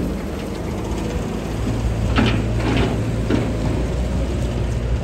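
Hooklift truck's diesel engine running steadily as the loaded truck moves off, with a few metallic clanks and knocks from about two to three and a half seconds in.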